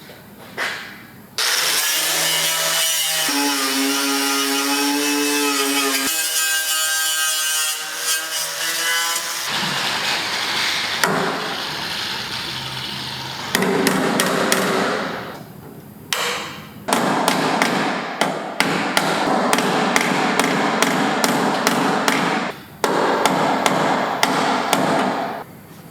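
Power tools working on a metal body panel. A spinning tool whines for several seconds, then gives way to rough, noisy passes with rapid clicking, stopping and starting several times.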